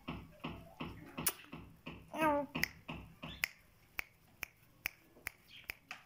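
Caged common myna giving one short call that rises and falls in pitch, about two seconds in. Sharp clicks run through the rest, becoming a crisp run of about two a second in the second half.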